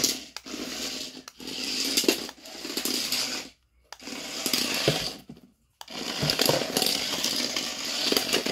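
Small electric motor and plastic gears of a toy remote-control BB-8 droid whirring as it is driven, in four bursts that start and stop.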